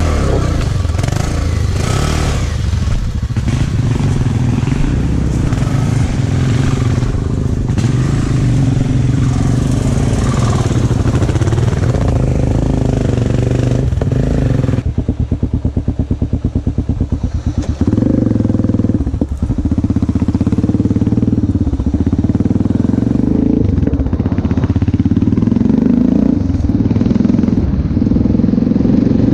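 Enduro motorcycle engine running under throttle. About fifteen seconds in it drops to a pulsing, chugging beat for a few seconds, then picks up again and runs steadily.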